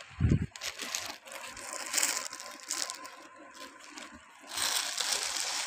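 Clear plastic garment bags crinkling and rustling as the bagged suits are handled and brushed against right at the microphone, with a dull bump just after the start and the loudest rustling near the end.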